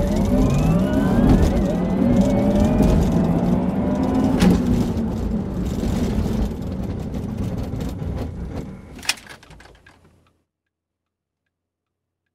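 Porsche Taycan's electric drive whining under hard acceleration, its pitch rising steadily over the first few seconds with tyre and road noise beneath. The whine then levels off and the sound fades, with a short click near the end, and cuts off about ten seconds in.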